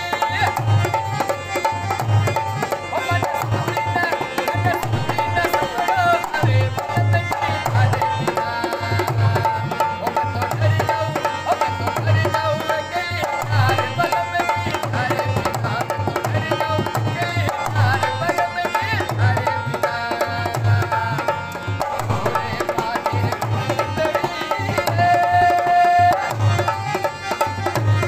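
Harmonium playing a sustained melody over a hand drum keeping a steady, even beat: the live accompaniment music of a Rajasthani kathputli puppet show.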